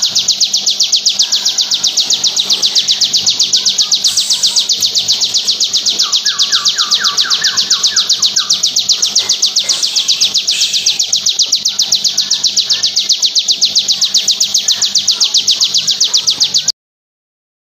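Bar-winged prinia (ciblek) singing its 'bren' song: a long unbroken run of rapid, evenly spaced high notes that cuts off suddenly near the end.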